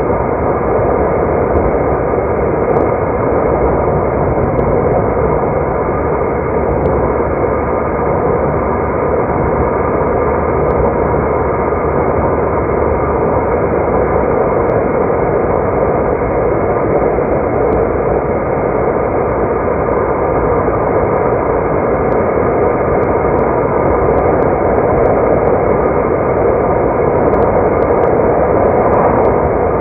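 Steady road and engine noise from a car being driven, an even rushing sound that holds level throughout.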